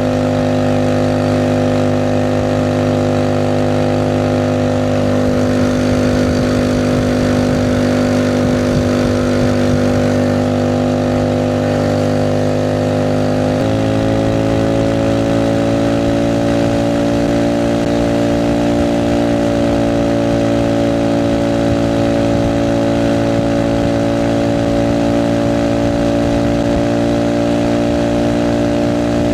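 Alpha moped's single-cylinder engine running at a steady speed; about halfway through, its note steps up to a slightly higher steady pitch.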